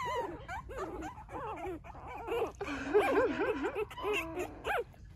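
Three-week-old Cavalier King Charles Spaniel puppy whimpering in a run of short, wavering cries.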